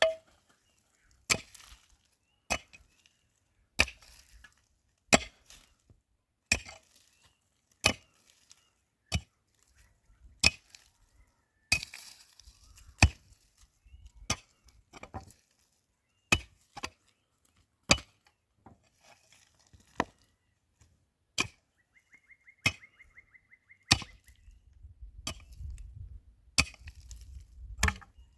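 Wood being chopped: sharp strokes at a steady pace, about one every second and a quarter.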